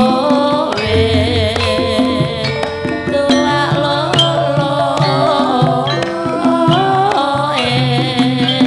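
Javanese gamelan-style music: a sinden singing a slow, ornamented melody over sustained pitched instrument tones and a steady pattern of low hand-drum strokes.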